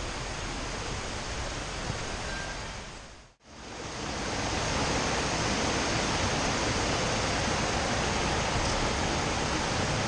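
Steady rushing of a shallow rocky creek running over small cascades. It fades in after a brief dip to silence about three seconds in. Before the dip there is a softer steady hiss.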